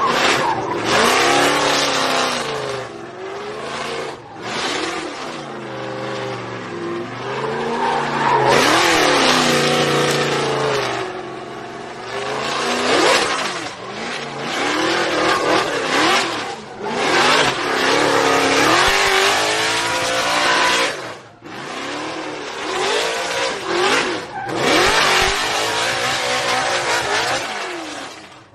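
Drift car engine revving hard, its pitch climbing and falling again and again, over the hiss and squeal of spinning tyres in long slides. There are a few brief drops in the sound along the way.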